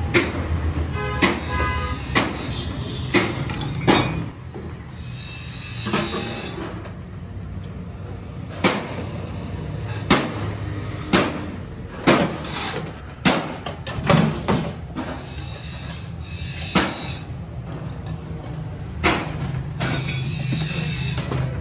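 Stainless steel stove parts clanking and knocking as they are set down and fitted together: irregular sharp metal knocks, about one every second or two.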